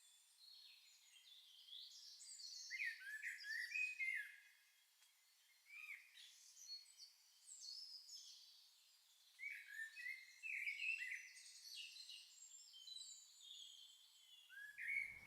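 Small songbirds chirping and singing faintly: many short, quick chirps and warbling phrases, pausing briefly now and then.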